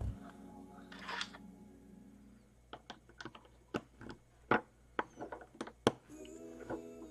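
A run of about a dozen sharp, irregular clicks of hard plastic LEGO pieces being handled and snapped together. Soft holiday music plays before them, fades out, and starts again just after the clicks.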